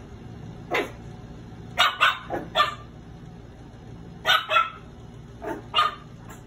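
Three-month-old Shih Tzu puppy barking at its reflection in a mirror: about nine short barks in quick bursts of one to four.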